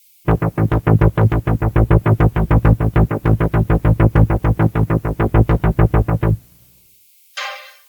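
Synthesized electronic pulsing: a low, buzzy note repeated rapidly at the same pitch, about six or seven pulses a second for some six seconds, stopping abruptly. A brief burst of hiss follows near the end.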